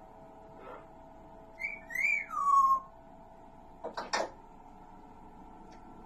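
African grey parrot whistling: one clear whistle about two seconds in that rises and then slides down in pitch, followed by two short vocal bursts about four seconds in.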